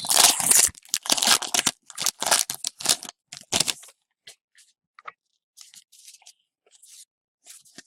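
A foil hockey card pack being torn open: a quick run of loud crinkling rips over the first four seconds, then faint scattered rustles and flicks as the cards are handled.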